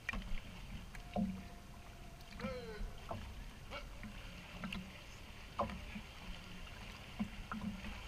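Pool water lapping and splashing against a camera held at the water's surface, with irregular small slaps every second or so.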